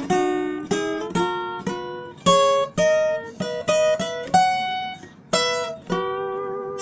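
Acoustic guitar playing a run of picked notes and chords as the closing bars of a song. A last chord is struck about six seconds in and left to ring out.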